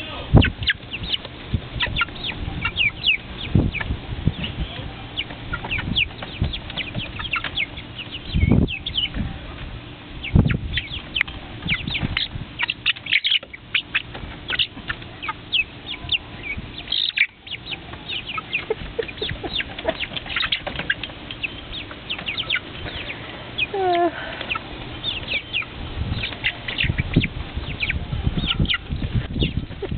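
A flock of chickens clucking and squawking in quick, overlapping calls, with wings flapping, as they chase each other for a piece of food. A few low thumps come through, and one longer falling squawk stands out near the end.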